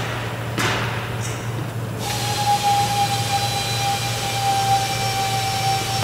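Workshop machinery noise over a constant low hum. A short burst of hiss comes in the first second or so, then about two seconds in a machine starts and runs on with a steady high whine and a hiss.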